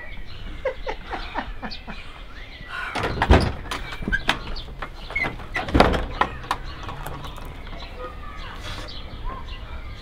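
Two heavy knocks or thumps about two and a half seconds apart, among lighter clicks and knocks, with birds chirping in the background.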